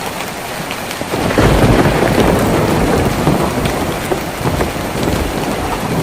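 Rain falling steadily on a tin roof, with scattered drop ticks. About a second in, a low rumble swells up under the rain and slowly fades over the next few seconds.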